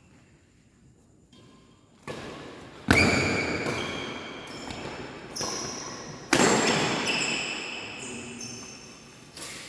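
Badminton rally: shuttlecock struck back and forth by rackets, a series of sharp hits each with a short ringing tail, the loudest about three and six and a half seconds in.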